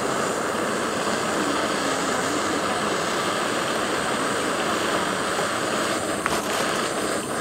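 Small BRS canister gas stove burning with a steady hiss under an enamel percolator as the coffee heats toward percolating. A couple of faint clicks come near the end.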